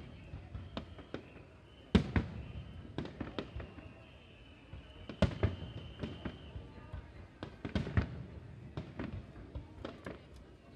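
Aerial firework shells bursting in a rapid, uneven series of sharp bangs, the loudest about two, five and eight seconds in.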